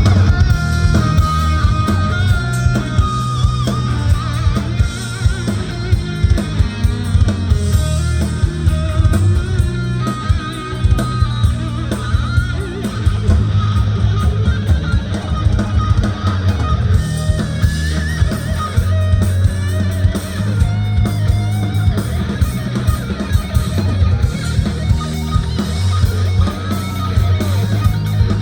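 Rock music with a guitar playing a melodic lead line, bending and wavering in pitch, over heavy bass and a drum kit.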